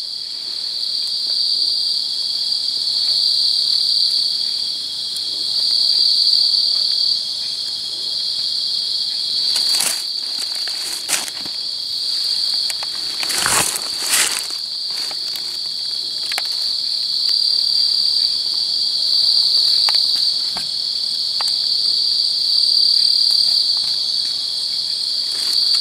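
Night-time insect chorus, a steady high-pitched trill that swells and eases every few seconds. About midway there are a few brief rustles and a dull knock in the dry leaf litter.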